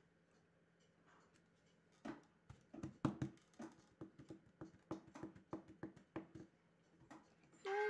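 A quick, irregular run of sharp sounds from a couple of seconds in, then near the end a mobile phone begins ringing with a melodic ringtone: an incoming call to grandpa's phone.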